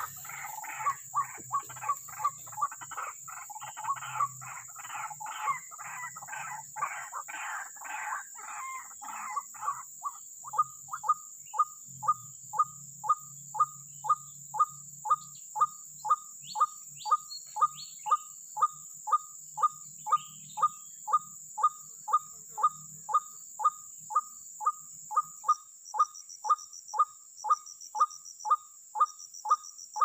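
White-breasted waterhen (ruak-ruak) calling: a harsh, dense run of repeated calls for the first ten seconds, then an even series of short, sharp falling notes, about two a second. A steady high hiss runs underneath.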